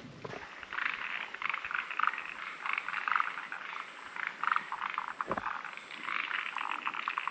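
Several frogs calling at once, overlapping runs of rapid pulsing croaks.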